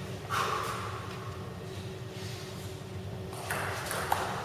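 Table tennis rally: a table tennis ball knocked between bats and table, with the sharpest tick about four seconds in, over a steady low hum.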